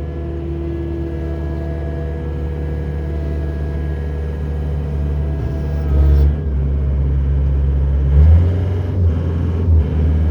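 John Deere 317 skid steer loader's diesel engine running steadily, heard from the operator's seat and slowly getting louder. A few low thuds come in the second half.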